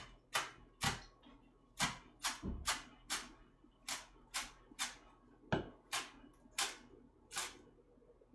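Kitchen knife chopping garlic chives on a cutting board: about sixteen sharp knocks of the blade on the board at an uneven pace, roughly two a second.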